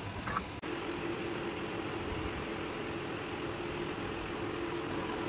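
Original Prusa XL 3D printer running, its fans giving a steady whirring hum with one low held tone. There is a brief break in the sound about half a second in.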